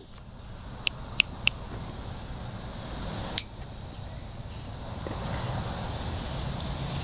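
Insects chirring steadily in a high, even band, with three quick sharp clicks about a second in and a louder click a little after three seconds.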